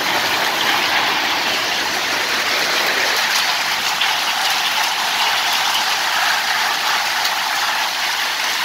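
Heavy rain mixed with hail pelting the ground: a dense, steady hiss with faint ticks of stones striking. A lower rumble under it drops away about three seconds in.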